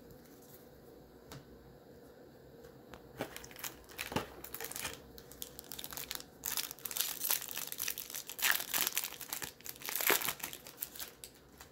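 Baseball card pack's wrapper being crinkled and torn open. The crackling starts about three seconds in and grows denser and louder toward the end, then stops.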